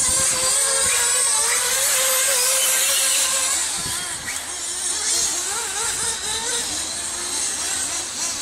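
Radio-controlled off-road cars running on a dirt track, their small motors whining and repeatedly rising and falling in pitch as they speed up and slow down.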